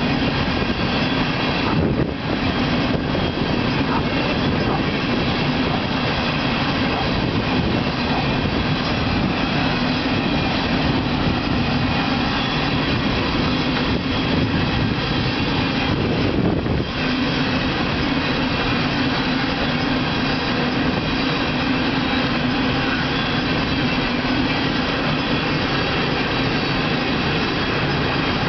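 Empty coal train's gondola cars rolling steadily past, steel wheels running on the rails.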